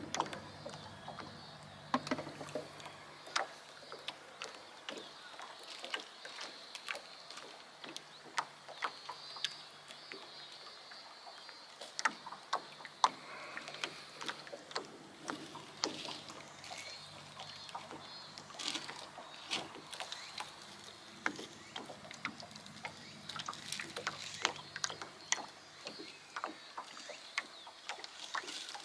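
Light water lapping and small irregular knocks and clicks against a moored rowboat's hull, quiet throughout.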